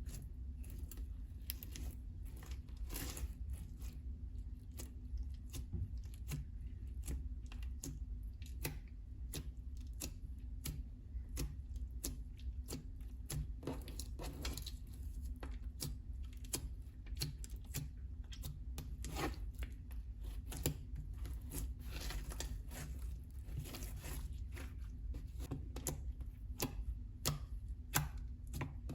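Slime being mixed and worked, giving off irregular sticky clicks and crackling pops over a low steady hum.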